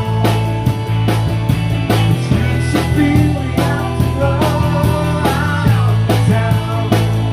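A live rock band playing through a stage PA during a sound check: loud electric bass, drum kit hits and sliding pedal steel guitar lines.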